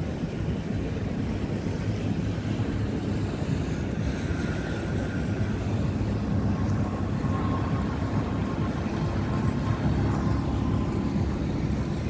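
Steady low drone of boat engines on the river, mixed with wind rumbling on the microphone, with a faint thin whine at times.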